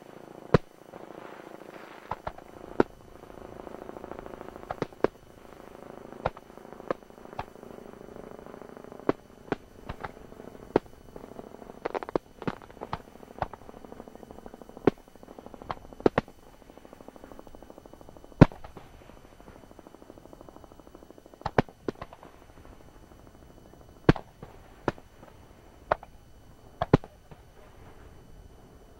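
Aerial fireworks shells bursting one after another: sharp bangs at irregular gaps of about half a second to two seconds, the loudest about two thirds of the way through, coming less often near the end.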